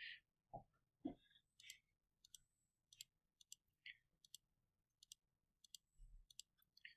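Faint computer mouse clicks, about a dozen at uneven intervals, pressing the keys of an on-screen calculator; otherwise near silence.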